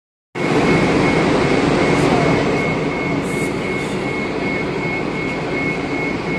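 Steady, loud vehicle engine noise: a low rumble with a constant high-pitched whine over it.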